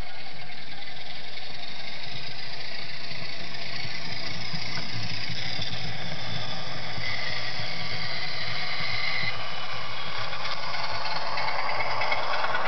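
DCC sound decoder in a Bachmann OO gauge Class 47 model locomotive, playing a Class 47 diesel engine sound through its small speaker. It runs steadily as the model departs the shed.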